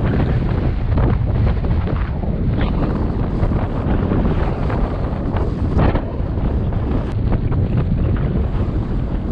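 Wind buffeting the microphone with a steady low rumble, while water splashes irregularly against a kayak under way at sea.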